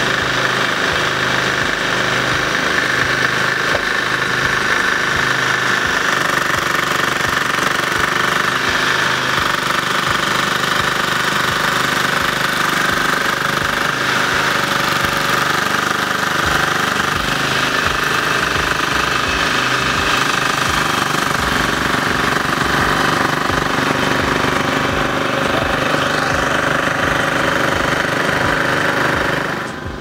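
Portable petrol generator engine running steadily, with an uneven low chugging.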